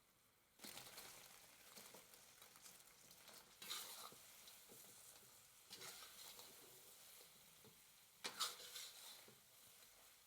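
Food sizzling in a wok while being stirred, with scattered clicks and three louder surges of sizzle partway through.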